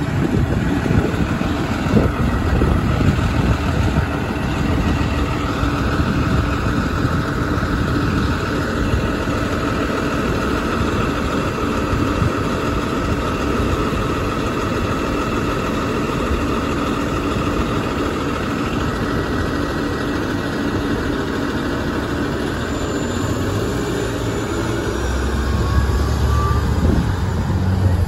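Orion VII Next Gen diesel-electric hybrid city bus running as it pulls away through traffic: a steady engine sound with a steady high whine over it in the middle. A louder low rumble comes near the end.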